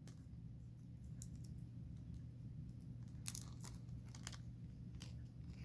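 Faint clicks and rustles of small model parts and a tiny screw being handled, perhaps taken from a small plastic parts bag, over a steady low hum. There are a handful of separate light clicks, the clearest about three seconds in.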